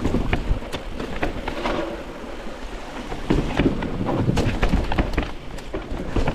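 Mountain bike riding down a rooty dirt trail: tyres rolling over dirt and roots, with many sharp knocks and rattles from the bike as it hits the bumps, busiest about halfway through.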